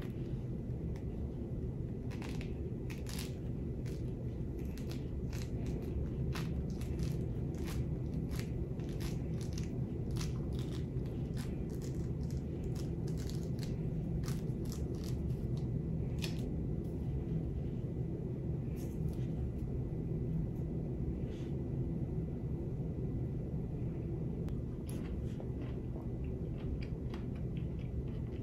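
A mandarin orange being peeled by hand: the rind tears away in many short crackles and snaps, over a steady low background hum.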